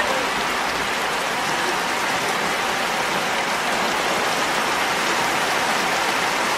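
Water falling steadily like rain, spraying down onto an open umbrella.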